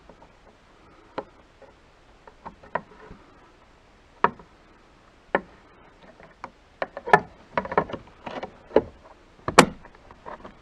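Mercedes W212 side mirror glass and its plastic backing being handled and fitted: scattered plastic clicks and knocks, coming thicker in the second half, with the loudest snap near the end as the glass is pressed onto the mirror's adjuster.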